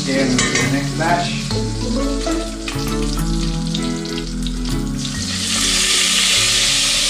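Chicken pieces searing skin-side down in hot oil in a stainless steel pot, sizzling, with metal tongs clicking against the pot. The sizzle grows louder about five seconds in as a piece is laid into the oil. Background music plays underneath.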